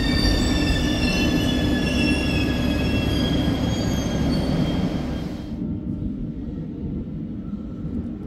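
Bucharest Metro train slowing alongside the platform, its electric traction motors whining in several high tones that fall steadily in pitch over a heavy rumble of wheels on rail. The whine cuts off abruptly about five and a half seconds in, leaving a quieter low rumble.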